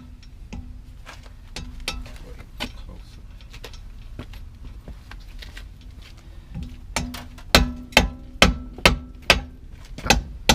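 Light metallic taps and clinks, then about seven seconds in a run of loud, ringing hammer blows on metal at about two a second, struck while driving the front axle shaft out of a car's wheel hub.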